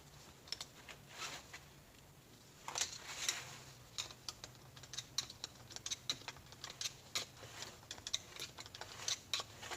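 Irregular light clicks and metallic taps of 46RE automatic transmission clutch plates, steels and frictions, being handled and worked out of the clutch pack.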